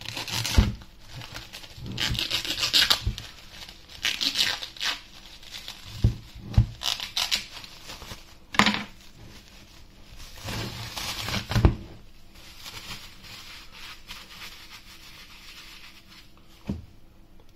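Plastic cling film being handled, pulled and crinkled in irregular rustling bursts every second or two, with a few short knocks in between.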